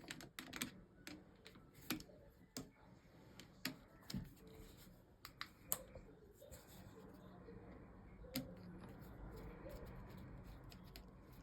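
Faint, scattered small clicks and taps of a screwdriver and plastic dashboard trim being worked as the screws holding a car's light switch are taken out. A faint low hum sets in about halfway through.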